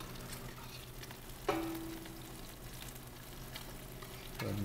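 Cod fillets searing in oil in a sauté pan, a steady sizzle over a low hum. About a second and a half in, a utensil clinks once against a dish with a short ring.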